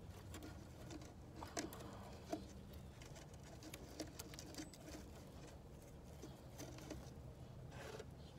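Faint, scattered clicks and light taps from tools and parts being handled during suspension work, over a low steady hum.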